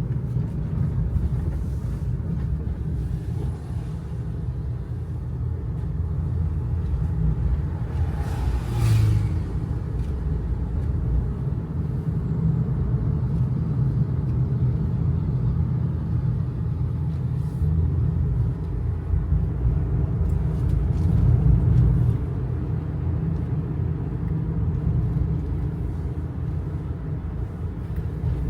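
Kei truck on a mountain road: its small 660 cc engine running with a steady low rumble of engine and road noise, swelling briefly now and then under load. A brief sharper noise cuts in about nine seconds in.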